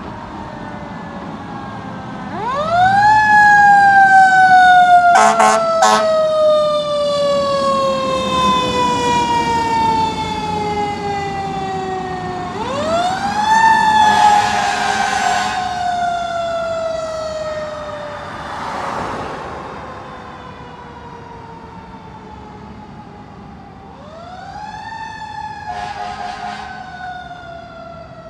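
Fire engine's siren winding up quickly and then slowly winding down, three times over. Short horn blasts break in during each cycle.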